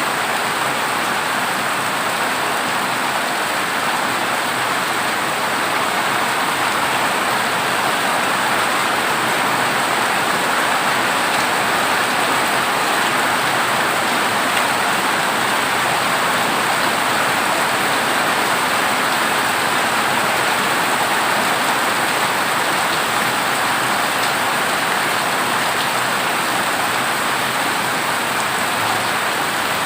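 Heavy rain falling steadily on a corrugated zinc roof, an even, unbroken hiss of rain.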